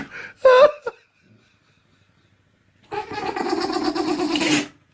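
An animal calling: a short squeaky call, then about two seconds later a longer raspy, drawn-out call lasting nearly two seconds.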